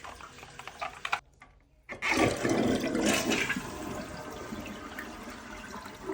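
Dual-flush toilet flushed about two seconds in: a sudden rush of water that slowly tapers off. It is flushing freely again now that a dirty part that held back the water has been cleaned. A few light clicks come before the flush.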